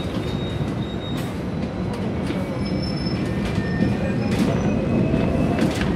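Hong Kong double-deck electric tram (no. 88) running along its rails, heard from on board: a steady rumble of the running gear with irregular sharp clacks from the wheels on the track and a faint high wheel squeal.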